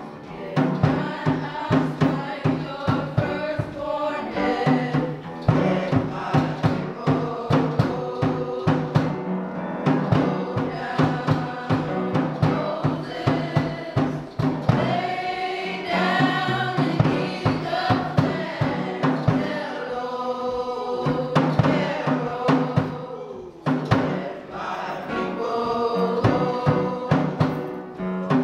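Gospel music: a choir singing over a steady drum-kit beat.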